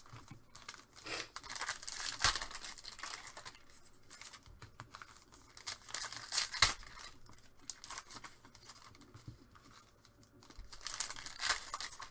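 Wrapping on a box of Panini Revolution basketball card packs being torn open and crinkled, with irregular crackling and a couple of sharper snaps, about two and six and a half seconds in.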